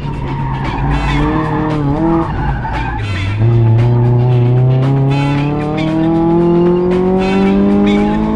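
1999 Mazda Miata's 1.8-litre four-cylinder, with aftermarket header and Borla exhaust, heard from the open cockpit on an autocross run: the revs dip and come back around one to two seconds in, then climb steadily from about three seconds in as the car pulls hard in gear. A funk music track with a steady beat plays along.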